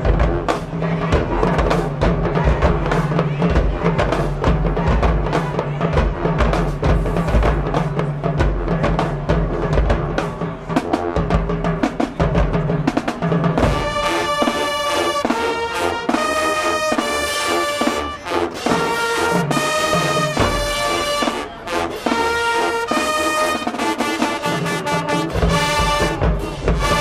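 High school marching band playing: heavy drums and low brass for the first half, then the brass section plays a run of short, loud chords with gaps between them, the low drums coming back in near the end.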